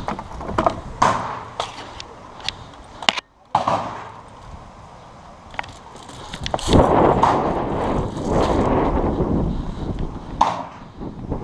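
A run of sharp clicks and cracks in the first few seconds, then a few seconds of loud rough rustling and scuffing close to the microphone, the noise of a player moving with gear during an airsoft game, with one more crack near the end.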